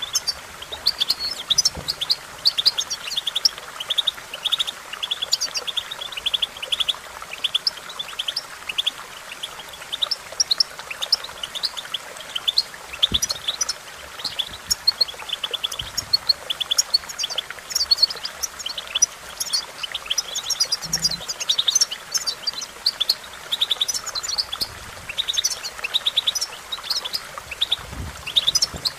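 European goldfinch singing: a continuous run of fast, twittering chirps and buzzy trills.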